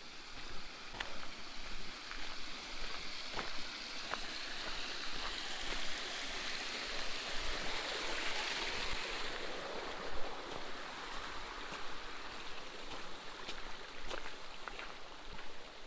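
Running water of a small forest stream, a steady rushing that swells louder through the middle and eases off again, with a few sharp light clicks.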